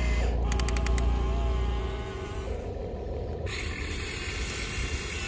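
RC excavator running, with a strong low rumble for the first two seconds and a quick run of clicks about half a second in. About three and a half seconds in, a loud hiss sets in as dirt spills from its bucket into the dump truck's bed.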